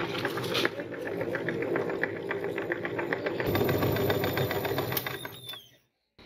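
Metal meat grinder crushing hard, brittle items into powder: a rapid, even run of crackling clicks over a steady grinding rattle. It stops suddenly near the end.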